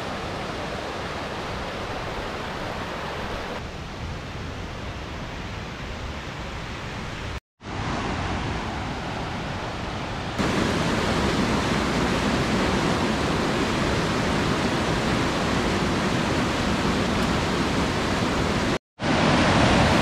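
Fast mountain creek swollen with snowmelt, rushing and splashing over rocks in a steady roar of white water. The sound cuts out briefly twice, and it is louder from about halfway in.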